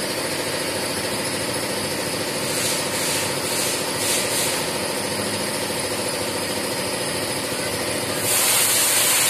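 Steady engine-like machine drone in the background. About two to four seconds in, short crackly peeling sounds of electrical tape being wound around a wire, and a loud hiss starts near the end.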